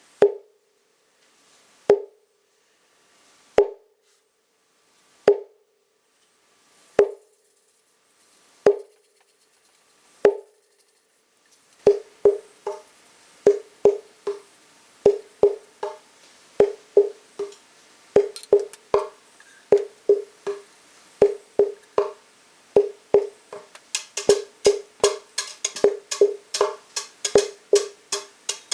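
Homemade wooden hand drum with a thin solid-wood top, struck by hand, each hit giving the same short note. Single beats come slowly and evenly at first, then about halfway through a faster rhythm starts, with sharper, brighter slaps mixed in near the end.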